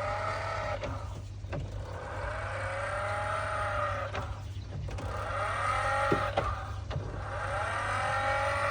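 Cordless drill-driver driving screws in several short runs, about four, its whine rising and then falling in pitch each time, with a few sharp clicks between runs. A steady low hum runs underneath.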